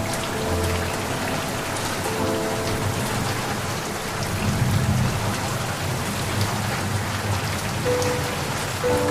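Steady heavy rain pattering on a surface, with a low rumble of thunder swelling about halfway through. Soft, sustained music notes sound over the rain near the start and again near the end.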